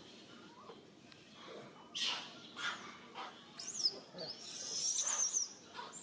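High-pitched animal calls with sliding pitch, starting about three and a half seconds in, one of them held for about a second, after a few softer rustling sounds.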